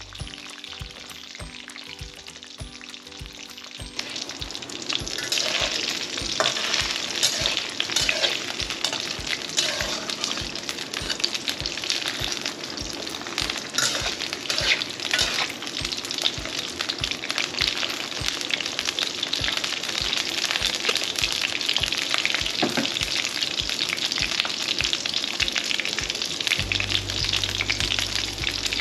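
Food frying in hot oil in a pan, a steady sizzle with stirring, starting about four seconds in. Under it, background music with a steady beat.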